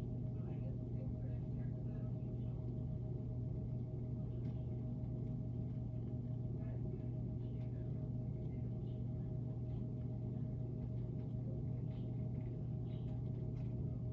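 Faint, scattered peeping of baby chicks over a steady low hum.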